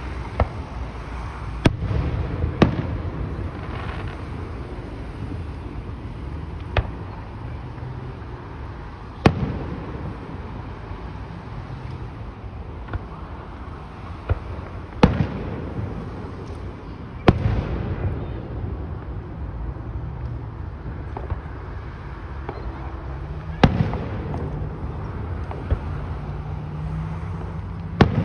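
Aerial fireworks shells bursting: about eight sharp bangs spread unevenly, several seconds apart, over a low rumble.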